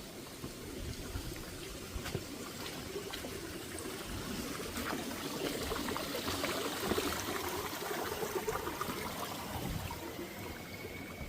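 Small rainforest creek trickling and splashing over rocks. It is louder in the middle, with a thin, high, held note near the end.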